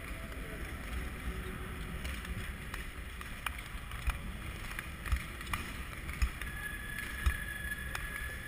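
Speed skate blades gliding and pushing on ice, a continuous scraping hiss with wind rush on the microphone. It is broken by scattered clicks and low knocks, and a faint steady high tone comes in near the end.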